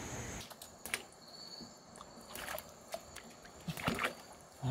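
Faint steady chirping of insects, with a few scattered light clicks and knocks and a duller one at the very end.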